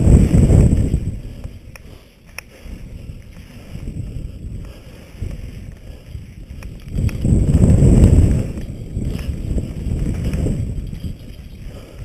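Wind buffeting the microphone of a helmet camera on a fast downhill mountain-bike descent. It comes in two loud rumbling surges, one at the start and another about seven seconds in. Between them is softer tyre noise on dirt with scattered sharp clicks and rattles.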